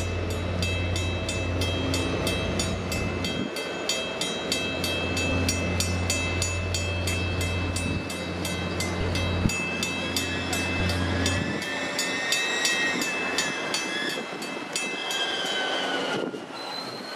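Railroad crossing bells, a mix of mechanical and electronic bells, ringing in fast, overlapping strokes while the gates are down, with a train rumbling low nearby for the first two-thirds. Near the end the bells stop as the crossing gates go up.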